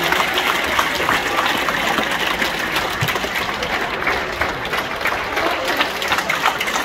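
Theatre audience applauding: dense, steady clapping from a full house.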